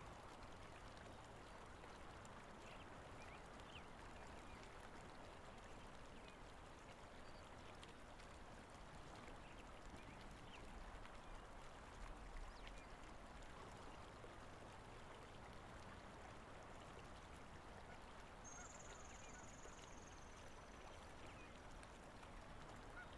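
Near silence: faint outdoor ambience, a steady soft hiss with a few faint chirps. About three-quarters of the way through, one thin high whistle falls slightly in pitch over about a second and a half.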